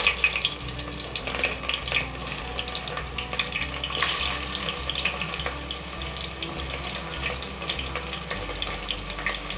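Finely chopped onions frying in hot oil in a pan: a steady sizzle with dense crackling.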